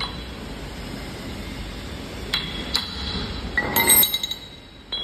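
Steel machine parts clinking against each other as a metal fitting is worked onto a flanged steel shaft: two sharp ringing clinks a little past two seconds in, then a louder cluster of ringing clinks near four seconds, and one more at the end.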